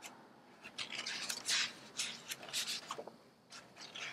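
Thick pages of a large hardcover book being turned by hand: a few papery swishes and rubs, then some light taps and clicks near the end.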